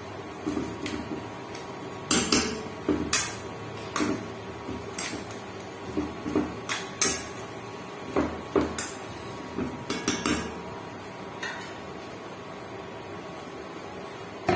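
Metal spoon clinking and scraping against a frying pan while stirring chicken, in irregular knocks that thin out over the last few seconds.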